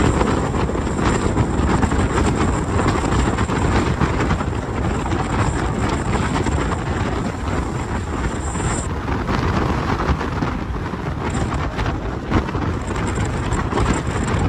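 Car engine and exhaust noise, loud and steady, with wind buffeting the microphone.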